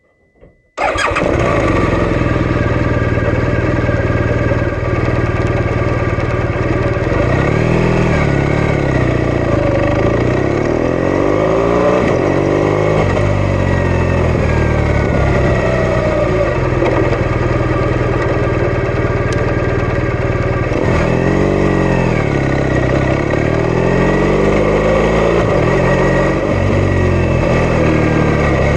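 BMW R1200RS boxer-twin engine starting abruptly about a second in, then running as the motorcycle rides along, its pitch rising and falling twice with acceleration and gear changes.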